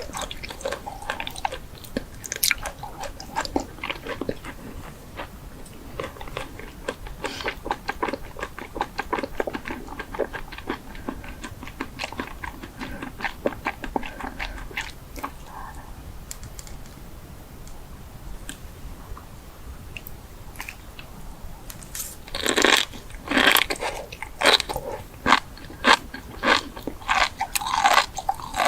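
Close-up eating sounds: crunchy food being bitten and chewed, a steady stream of small crackles and clicks, with a louder run of crunching bites in the last third.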